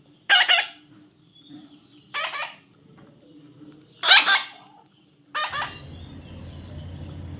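A young parrot gives four short, harsh squawks about two seconds apart. After the last one, a steady low hum starts.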